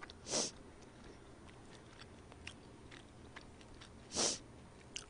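Faint close-miked eating sounds: small chewing and mouth clicks, with two short hissy breaths, one near the start and one about four seconds in.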